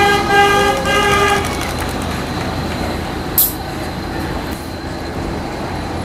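Car horn tooting twice in quick succession, the second toot a little longer, a driver honking in support of a protest. Steady street traffic noise follows, with one short sharp hiss about three and a half seconds in.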